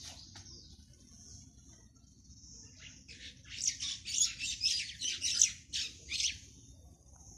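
Birds chirping, with a quick run of loud, rapid chirps from about three to six seconds in over a thin, steady high-pitched sound.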